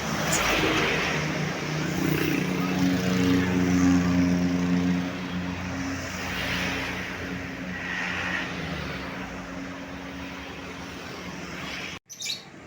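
Road traffic passing close by: a heavy vehicle's steady engine drone with the rush of tyres and air as several vehicles go past, dropping slightly in pitch as one moves away. The sound cuts off abruptly near the end.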